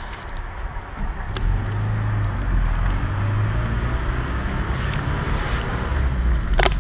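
Car engine running with road noise, heard from a moving car; the engine hum strengthens about a second and a half in. A sharp click of handling noise near the end.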